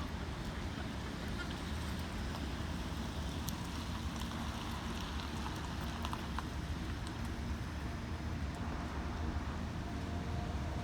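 Steady low outdoor rumble of a car lot, with a few faint clicks and a faint steady tone coming in near the end.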